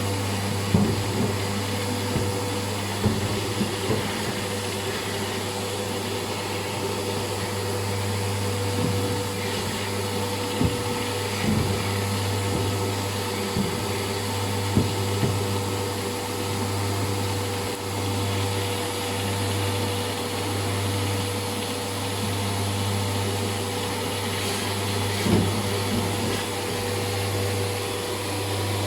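Vacuum cleaner running steadily, its flat nozzle sucking built-up lint out of a tumble dryer's exhaust tube, with a few short knocks and scrapes of the nozzle along the way.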